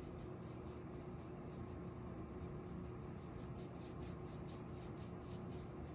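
Soft, quick rubbing strokes, roughly three a second, consistent with wiping eyeshadow swatches off skin, over a faint steady hum.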